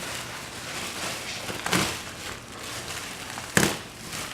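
Plastic packaging wrap crinkling and rustling as it is handled, with two sharper crackles, one near the middle and a louder one near the end.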